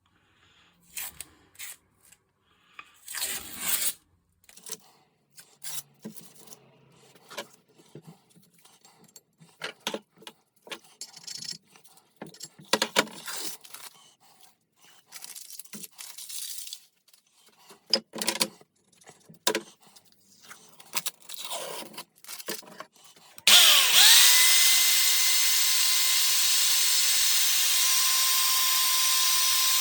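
Scattered knocks, clicks and scrapes of metal parts being handled on the bench, then, about three-quarters of the way in, a small power tool switches on, its motor whine rising quickly and then running steadily.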